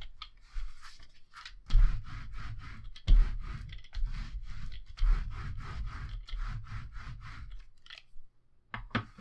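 Hand brayer rolled firmly back and forth over paper glued to a chipboard cover: a run of rough rolling and scraping strokes with a few low knocks, stopping about eight seconds in, followed by a couple of light clicks.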